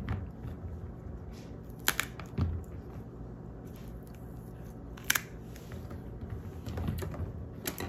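Stalks snapping off large green chillies by hand: three sharp, crisp snaps a few seconds apart, with a soft low knock after the first.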